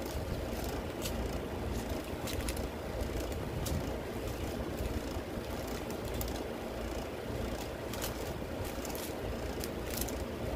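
Small plastic bags of diamond-painting drills being picked up and laid down on a cloth-covered table: plastic crinkling and the loose resin drills rattling in their bags in many short clicks. A steady low rumble runs underneath.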